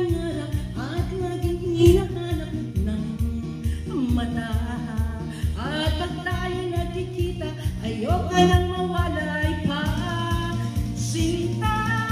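A woman singing karaoke into a handheld microphone, with a recorded backing track and a steady beat underneath.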